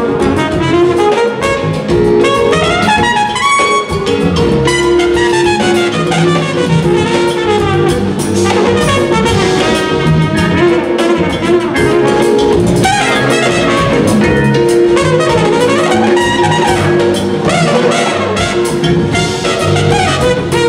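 Live jazz-fusion band: a trumpet plays a moving melodic line over drum kit and band, loud and continuous.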